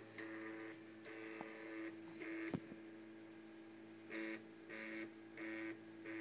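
Printrbot Simple 3D printer's stepper motors whining in short bursts of a fraction of a second, starting and stopping as the print head and bed move during a print. There is one sharp click about two and a half seconds in.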